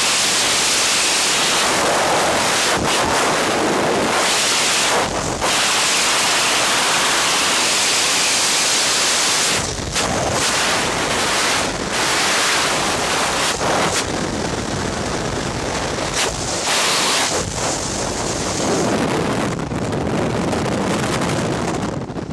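Loud wind rushing over a helmet-mounted camera's microphone in skydiving freefall, a steady roar broken by brief dips. In the last few seconds the high hiss thins out as the parachute opens and the fall slows.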